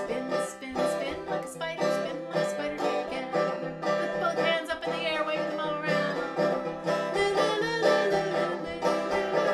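Bouncy plucked-string music with a steady beat, playing as an instrumental break between verses of a children's action song.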